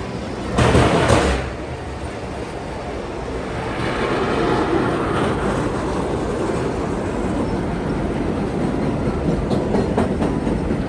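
Subway train running on elevated tracks, a steady rumble that swells a few seconds in. About a second in there is a brief, louder burst of noise.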